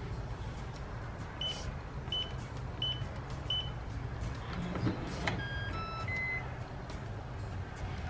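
Yale B1L keypad deadbolt: four short high beeps as a four-digit code is keyed in. About five seconds in comes a brief motor whirr and a click as the bolt is thrown, then a short run of electronic tones at different pitches signalling that it has unlocked.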